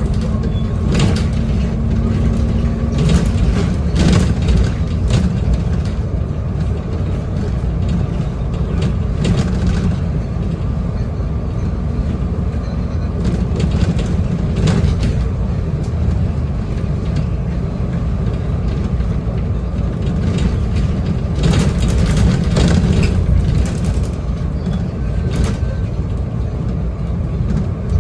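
Bus cabin noise at road speed: a steady low drone of engine and tyres, with scattered short rattles and clicks.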